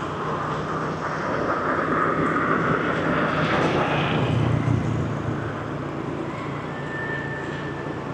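Street traffic noise with a low engine hum, swelling to a louder pass between about two and five seconds in and then easing off.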